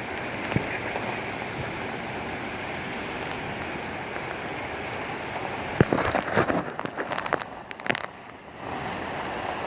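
Heavy rain pouring down in a severe thunderstorm, a steady hiss. About six seconds in, a burst of sharp clicks and knocks lasts for a couple of seconds, then the steady rain returns.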